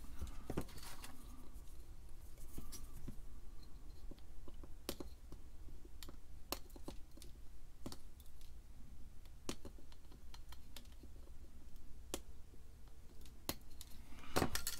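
Irregular sharp little clicks of flush cutters snipping resistor leads on the back of a printed circuit board, with some handling of the board between them.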